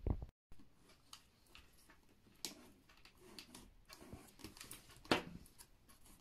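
Faint, scattered taps, clicks and rustles of a cardboard tube and a plastic bottle being handled as the tube is hot-glued and pressed into place, with a louder knock right at the start and another about five seconds in.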